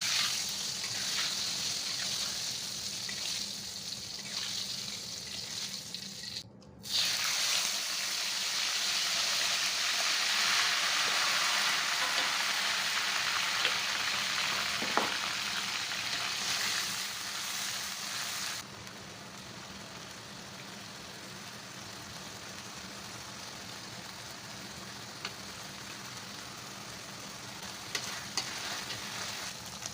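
Food sizzling as it fries in hot oil in a pan, a steady hiss with a few light clicks. There is a brief break about a quarter of the way through, and the sizzle drops noticeably quieter about two-thirds of the way through.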